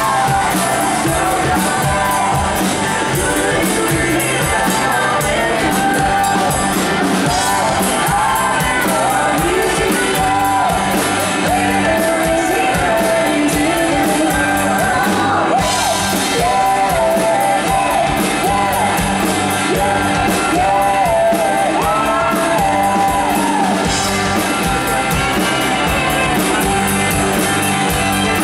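Live band playing a song, with male and female vocals singing over electric guitar, bass guitar and a drum kit, loud and unbroken.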